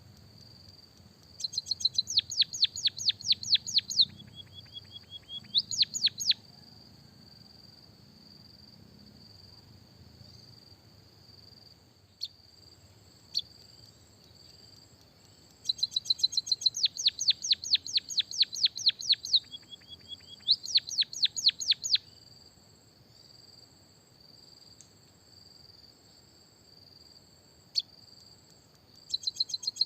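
A songbird sings in bursts of rapid, sharp chirps, about eight a second, each chirp sweeping downward. Each burst breaks into a short lower flat trill and then returns to fast chirps, and the pattern repeats three times. A steady high-pitched tone runs underneath.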